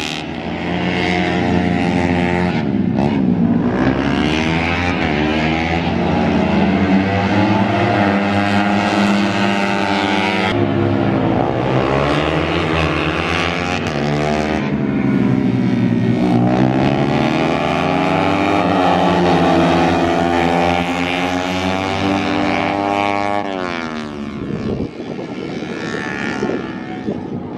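Racing motorcycle engines at high revs, the pitch climbing and falling again and again as the bikes accelerate down the straights and slow for the corners.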